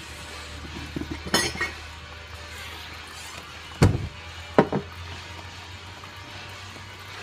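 Drip coffee maker gurgling and sputtering as hot water spurts through into the carafe, in a few irregular pops over a steady low hum; the loudest spurt comes near four seconds in.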